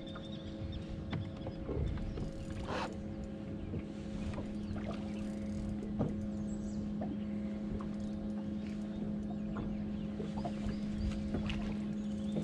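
A boat motor humming steadily at one pitch over low wind and water rumble, with scattered light knocks and clicks from the deck.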